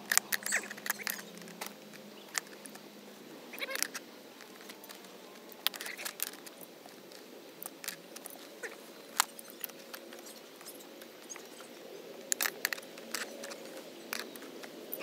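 Adjustable wrench working a wheel's axle nut: scattered, irregular light metal clicks and rattles as the wrench turns and is repositioned on the nut and steel hub.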